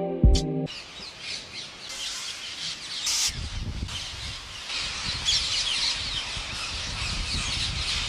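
Many birds chirping and squawking together in a dense, overlapping chorus, with a low rumble underneath from about three seconds in.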